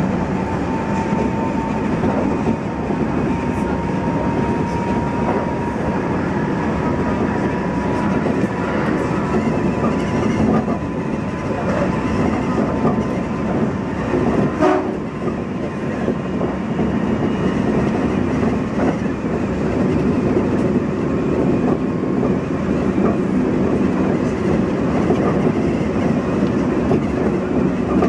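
Kintetsu 1233 series electric train running along the track, heard from the front of the train: a steady rumble of wheels on rail with clickety-clack over the rail joints. A faint steady whine sounds through the first ten seconds or so, and there is one sharp knock about halfway through.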